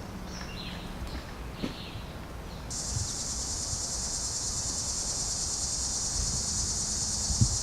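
Insects buzzing outdoors: a steady high-pitched drone that starts abruptly about a third of the way in and holds, with a few faint chirps before it.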